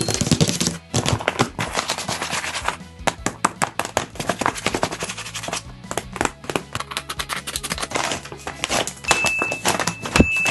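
Background music with a dense run of irregular clicks and rustles from paper being handled and unfolded.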